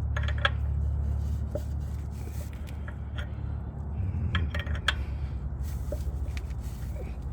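Wrench clinking and scraping against a Fumoto quick-drain valve as it is tightened into the oil pan: a few sharp metallic clicks, clustered about four to five seconds in, over a steady low hum.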